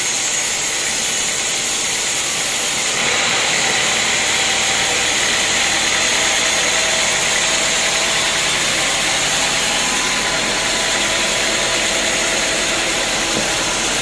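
Band sawmill running, its band blade cutting lengthwise through a teak beam as the carriage carries it past, with a steady hissing rasp. The sound turns louder and brighter about three seconds in, then holds steady.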